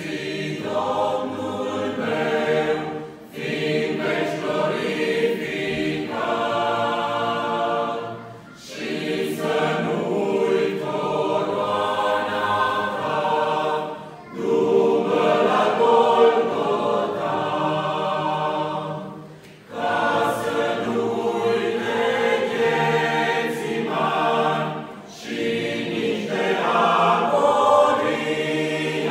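Mixed choir of men's and women's voices singing a Romanian hymn in Romanian, in sustained phrases of about five seconds with brief breath breaks between them.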